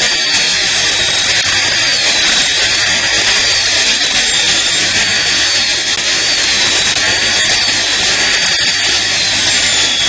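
High-speed dental handpiece whining steadily as a flat-end tapered diamond bur grinds the incisal edge of a model central incisor. Its pitch dips briefly and recovers every second or so as the bur bears on the tooth.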